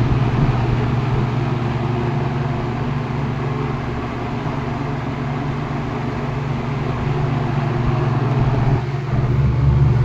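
1970s Monarch Aire three-speed box fan with a General Electric motor running on medium speed: a steady motor hum under the rush of air from its blades. Near the end the sound dips briefly and comes back louder.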